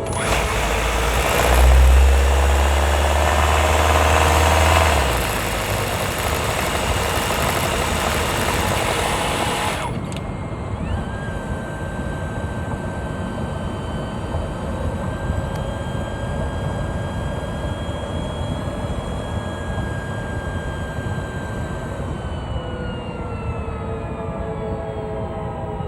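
Hyundai Tucson NX4 Hybrid's 1.6 turbo petrol engine, recorded from right on top of the engine, running loud under load; this load is when the owner hears a rattle that some say is normal. About ten seconds in the broad engine noise cuts off abruptly, leaving a steady high whine that falls in pitch near the end.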